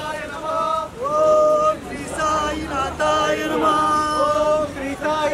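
Devotional singing, several voices chanting a melody with long held, wavering notes.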